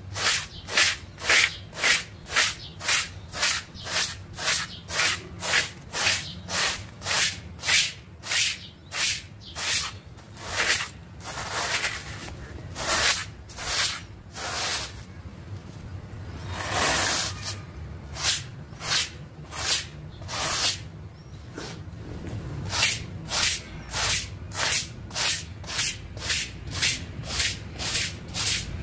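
Stiff-bristled hand brush scrubbing a wet, muddy artificial-grass rug: a rasping swish on each stroke, about two strokes a second, slowing to a few longer strokes midway before the quick rhythm resumes.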